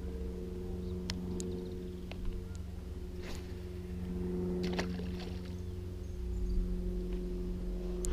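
A steady, low motor hum with a few sharp clicks over it.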